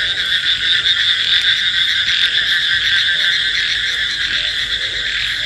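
A dense chorus of many frogs calling after rain: a steady, high-pitched mass of fast-pulsed calls.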